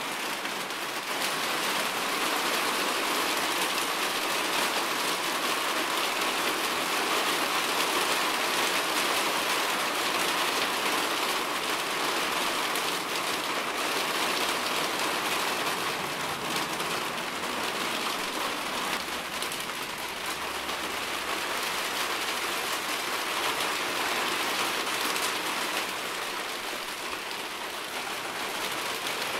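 Steady rainfall, drops pattering on a surface in an even hiss.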